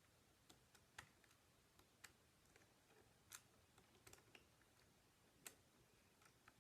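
Faint, irregular small clicks and ticks of a Phillips screwdriver working a screw out of a laptop's underside, spaced unevenly a few times a second.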